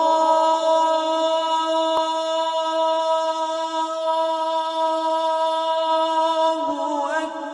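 Music: a singing voice holds one long, steady note, then moves on to a new phrase near the end.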